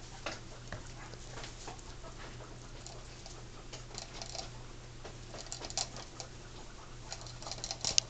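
Guinea pigs moving about on fleece bedding: scattered light clicks and rustles that come in small clusters about four seconds in, again past five seconds and near the end, over a faint steady low hum.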